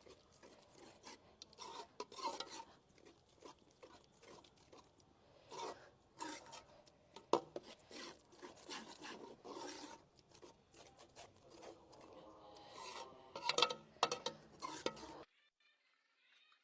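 A spoon scraping and stirring a thick yogurt-and-spice masala around a kadai in irregular strokes, as it cooks down until the yogurt's water is gone. The scraping stops abruptly near the end.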